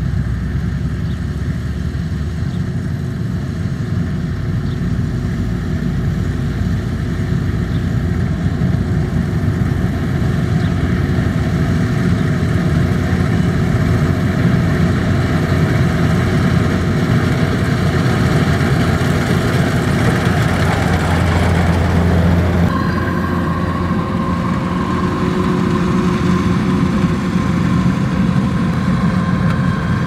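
Kubota DC93 combine harvester's diesel engine and threshing machinery running steadily under load as it cuts rice. The sound shifts abruptly about three-quarters of the way through to a steadier mix with a clearer higher hum.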